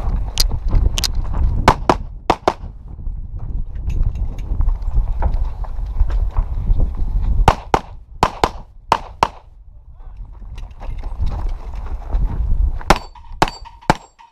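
Handgun shots fired in quick strings of about five or six, with pauses of a few seconds between strings, over a steady low rumble.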